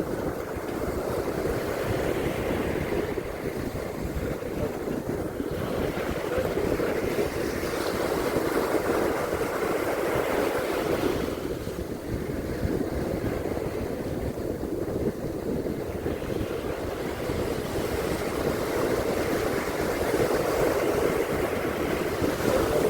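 Sea surf washing on a beach, a steady rush that swells twice as waves come in, with wind buffeting the microphone.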